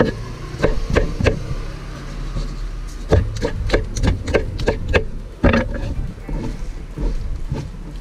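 Kitchen knife chopping tomatoes on a wooden cutting board: a few single chops, then a quick run of chops in the middle, thinning out near the end. A steady low rumble runs underneath.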